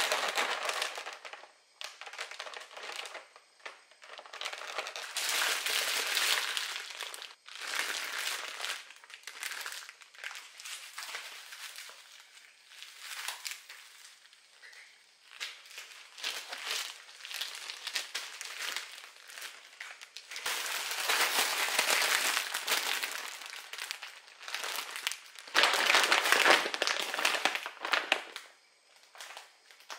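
Plastic food packaging crinkling and rustling as it is handled, in irregular bursts with short pauses between them. The loudest burst comes near the end, as a large plastic bag of frozen berries is handled.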